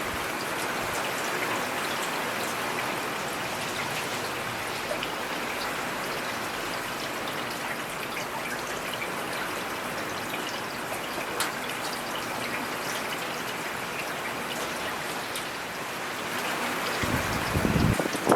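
Steady rain falling, a dense patter of drops with some trickling water. A brief low rumble swells near the end.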